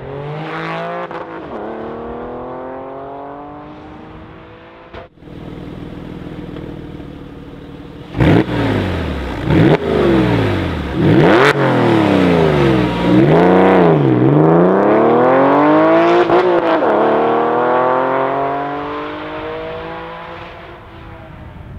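Porsche 996 Carrera flat-six engine through a Martelius cat-back exhaust. It accelerates at the start, breaks off sharply about five seconds in, and runs steadily. About eight seconds in it gives several sharp revs while standing, then pulls away and accelerates, shifting up once, and fades into the distance.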